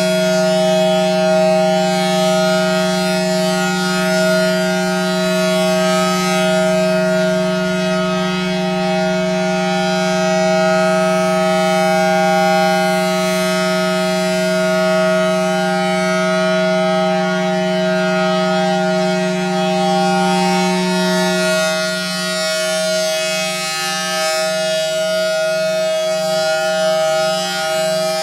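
Federal Signal Thunderbolt 1000T tornado siren sounding a steady full-alert tone. About three-quarters of the way through, the tone starts to flutter rapidly. Its blower runs backwards, sucking air rather than blowing, so it sounds less loud than such a siren can.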